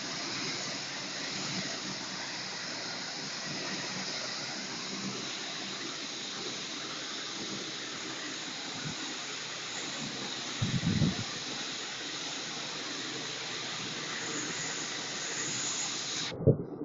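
Truckmount-powered rotary spinner tool cleaning tile and grout, a steady rushing hiss of its water spray and vacuum recovery. There is a low thump about eleven seconds in, and the hiss cuts off suddenly with a knock near the end.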